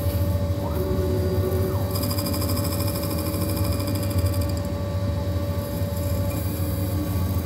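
CNC milling machine running, its spindle turning a white plastic workpiece against a fixed tool bit as on a lathe, with a steady hum and a steady whine. A higher buzzing comes in for a couple of seconds mid-way.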